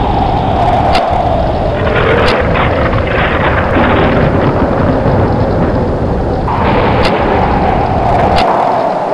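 Thunderstorm with strong wind: wind howling in two long gusts that sink slowly in pitch over a steady deep thunder rumble, with four sharp cracks spread through it.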